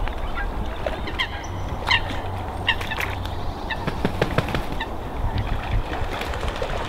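Waterfowl calling: about half a dozen short, pitched calls in the first five seconds, over a steady low rumble.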